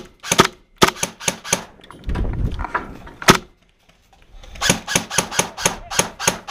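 Airsoft gun shots as sharp cracks: a few single shots and a quick group of four, then a faster string of about four shots a second near the end. A brief low rumble about two seconds in.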